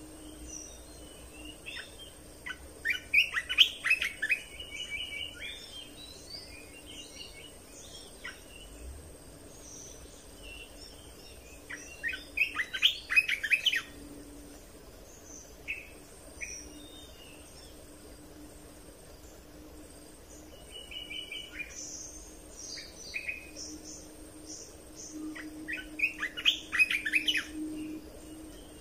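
Bulbul song: three loud bursts of rapid, chattering phrases, a few seconds in, around the middle and near the end, with scattered short chirps between. A faint steady low hum and a thin high whine run underneath.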